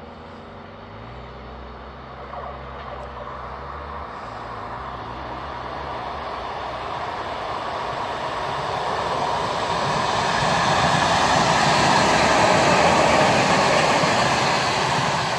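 ER2T electric multiple unit approaching and passing close by: the rush of wheels on the rails grows steadily louder, is loudest a few seconds before the end, then begins to ease as the train moves away. A steady low drone is heard at first and stops about four seconds in.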